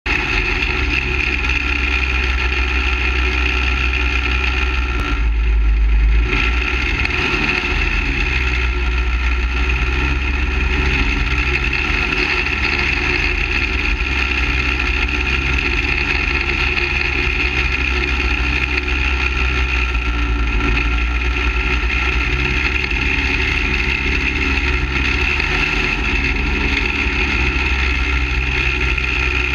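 Half-scale dirt late model go-kart's small engine running steadily, heard close from the car's roof, with a short, louder low surge about five seconds in.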